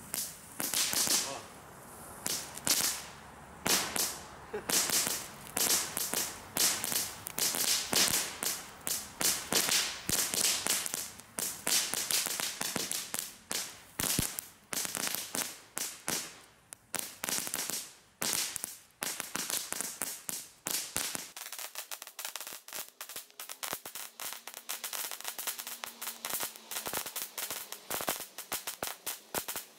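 Two small ground fireworks burning on the ground, giving a dense, irregular crackle of sharp pops, several a second. They were taken for strobe tablets but produce a crackling effect instead.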